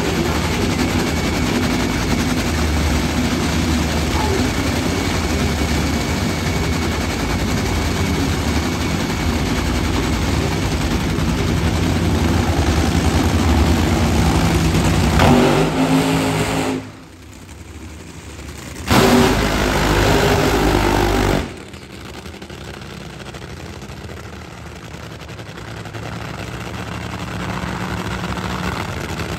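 Supercharged nitromethane V8 engines of two Funny Cars running, a loud, crackling rumble that goes on for most of the time. About two-thirds of the way in it drops off, then comes back louder for a couple of seconds and cuts off abruptly, settling to a lower, steady idle.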